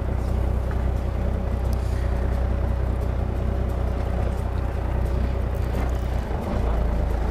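Steady low rumble of a fishing boat's engine running, with a faint steady hum above it.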